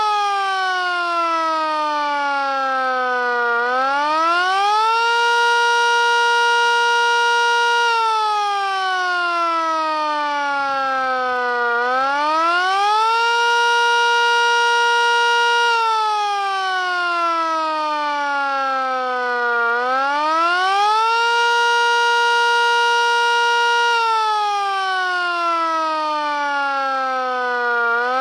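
Miniature Sterling M siren wailing in repeated cycles. Each cycle winds up in about a second and a half, holds a steady pitch for about three seconds, then winds down slowly over about four seconds before winding up again, about every eight seconds.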